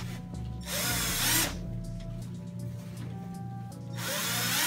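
Cordless drill boring mounting holes through a vending machine's front panel: two short bursts of drilling, one about a second in and another near the end, with the motor whining faintly between them.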